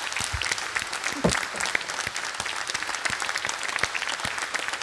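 Audience giving a standing ovation: many people clapping in a steady, dense patter.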